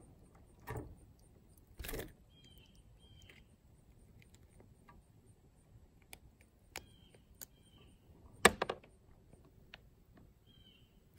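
Faint, scattered clicks and knocks from hands handling a small, freshly caught largemouth bass and working the soft-plastic lure out of its mouth, with a sharper knock about eight and a half seconds in.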